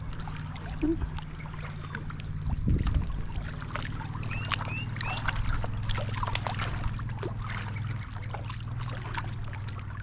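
Water splashing and dribbling, with scattered clicks and knocks as a freshly caught smallmouth bass is handled at the water's edge, over a steady low hum. A few short high chirps come about four to five seconds in.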